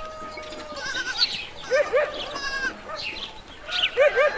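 Young goat kid bleating, short quavering calls that come in quick pairs.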